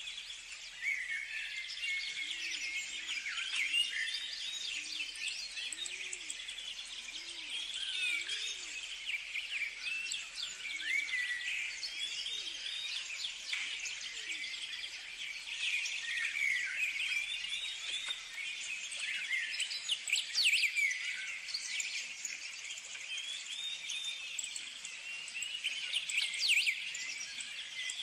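A chorus of many birds chirping and singing at once: a dense, continuous tangle of quick overlapping chirps and short whistled glides.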